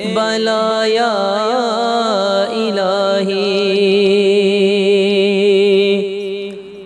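A man's voice singing the wordless, ornamented closing phrase of an Urdu devotional dua over a steady drone. It settles into one long held note with a slight waver, which fades out near the end.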